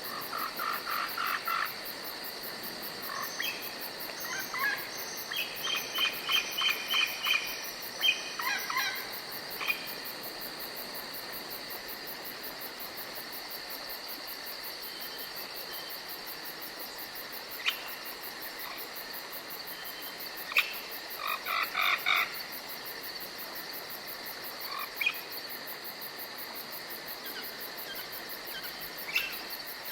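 Forest ambience at night: a steady high insect trill, with repeated bouts of rapid pulsed animal calls, several calls a second, that come and go.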